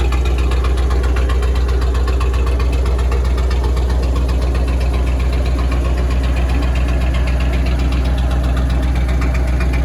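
1946 Ford truck's flathead V8 idling steadily with an even, rapid beat.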